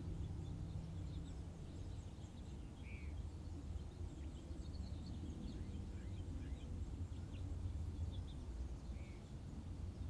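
Quiet background ambience: a steady low rumble with faint, scattered bird chirps, including one short call heard twice, about six seconds apart.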